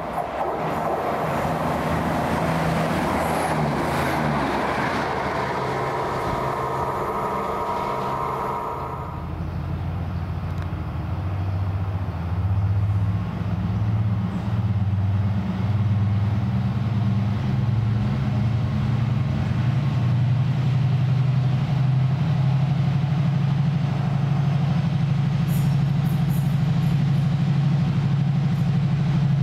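CrossCountry Class 170 Turbostar diesel multiple unit running into the station. For the first several seconds there is wheel and rail noise with a thin steady squeal as it slows. From about nine seconds its underfloor diesel engines take over with a low, steady idle as the train stands.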